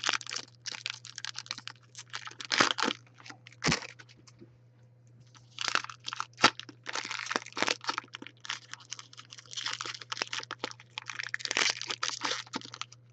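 Trading card pack being opened and its cards handled: irregular crinkling and crackling of the wrapper with small clicks, easing off for a moment about four seconds in.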